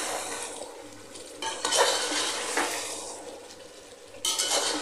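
A spoon stirring thick chicken curry in a metal pot, with several wet scraping strokes against the pot's side and bottom.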